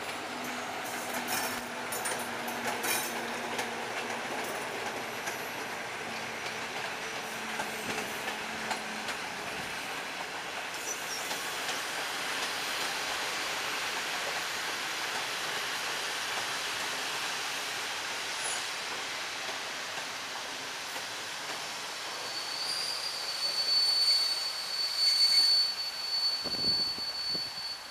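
Passenger coaches of a locomotive-hauled train rolling past, with wheels clicking over rail joints in the first few seconds. Near the end comes a high, steady squeal, the loudest part, as the train slows.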